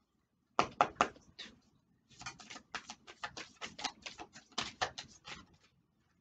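A deck of oracle cards being shuffled by hand: a quick run of card slaps and flicks, about four or five a second, starting about half a second in and stopping shortly before the end.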